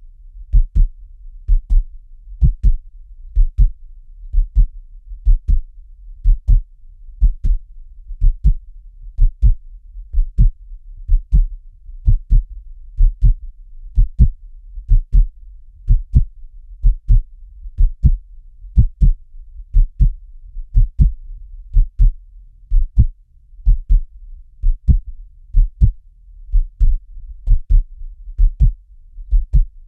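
Steady heartbeat, each beat a low double thump (lub-dub), about one beat a second.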